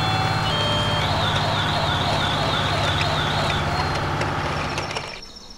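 Electronic siren of a toy fire truck: a two-tone hi-lo alternation that switches about a second in to a fast warbling wail, over a steady low hum. The sound cuts off shortly before the end.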